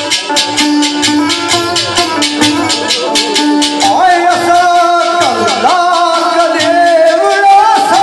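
Live Punjabi folk music: a man singing into a microphone over sitar, a steady drone and a fast, even rattling percussion beat. The voice comes in strongly about halfway through, with long sliding notes.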